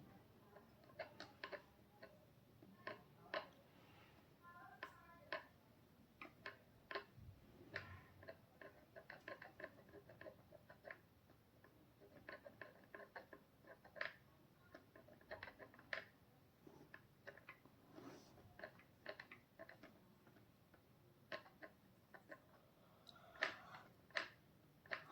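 Faint, irregular soft clicks and light taps of hands massaging oiled hair and scalp, several a second with uneven gaps.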